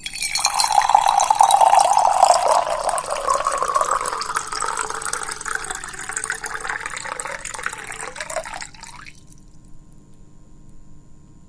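Water poured into a glass, a continuous splashing pour whose main band of sound climbs in pitch as it goes, loudest in the first couple of seconds, then easing off before cutting out suddenly about nine seconds in.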